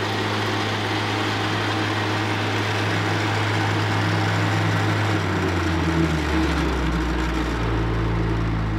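The 44 horsepower Kubota turbo diesel of a Carlton SP4012 stump grinder running steadily at raised revs, then slowing down about five seconds in and settling at a lower speed.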